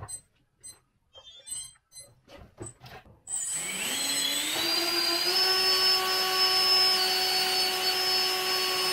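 A few light clicks, then a 70 mm electric ducted fan on a 3S battery spins up about three seconds in, its whine rising in pitch and then holding steady at full throttle.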